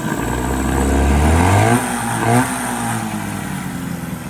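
2002 Mercury 15 hp two-stroke outboard revved up from idle for about a second and a half and dropped back, then blipped once more briefly before settling back to a steady idle.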